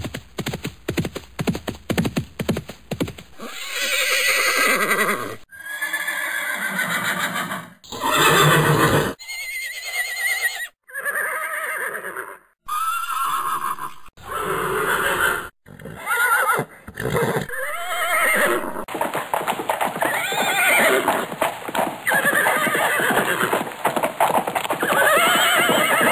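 Horses whinnying, one neigh after another, each a second or two long with a wavering pitch and broken off abruptly before the next.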